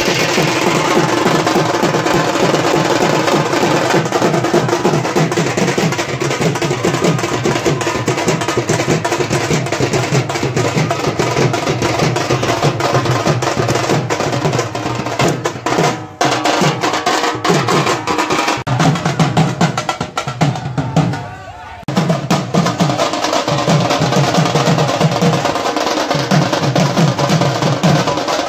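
Several double-headed barrel drums (dhol) beaten with sticks in a fast, loud, steady street rhythm, with crowd voices underneath. The drumming drops out briefly twice, once about halfway and again about three quarters of the way through.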